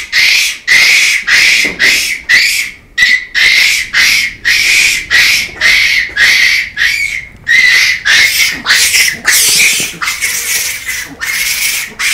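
Japanese macaques calling: a fast, regular series of loud, harsh shrieks, about two a second.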